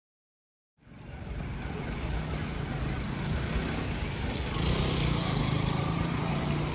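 Steady low rumble of vehicle noise that cuts in abruptly about a second in, after dead silence.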